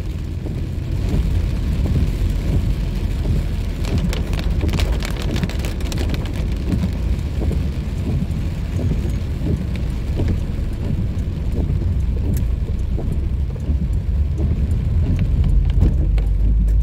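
Rain on a moving car, heard from inside the cabin: moderate rain pattering on the roof and windshield with scattered sharper drop hits, over a steady low rumble of tyres on the wet road.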